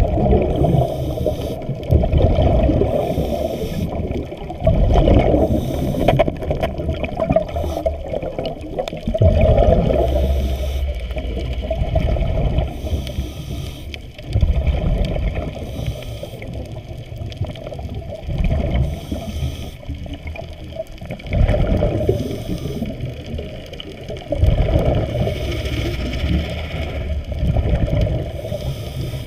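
Muffled underwater rushing and gurgling of water around the camera as it moves through the sea, swelling and fading every few seconds.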